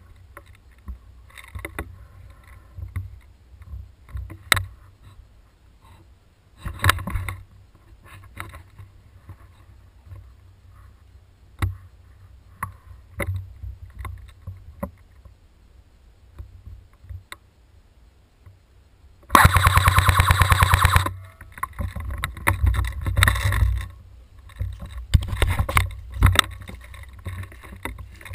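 An airsoft rifle firing one rapid full-auto burst of about two seconds, loud and close, about two-thirds of the way in. Around it, scattered clicks and knocks of handling, and after it rustling and thumping as the player moves through the undergrowth.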